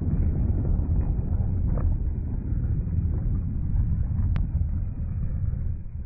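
Car exhaust running at the tailpipe, a steady deep low rumble strong enough to blow dust off the gravel, with a single sharp click about four seconds in.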